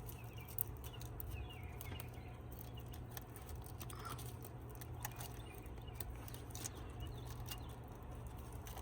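Faint scattered clicks and light taps of hands handling the plastic wire loom and wires, with a few faint bird chirps and a steady low hum in the background.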